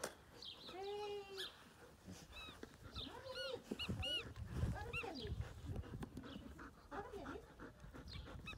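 Bernese Mountain Dog chewing a rubber chicken squeaky toy, squeezing out a series of squeaks: a longer, lower squawk about a second in, then many short high squeaks, over the rustle of chewing.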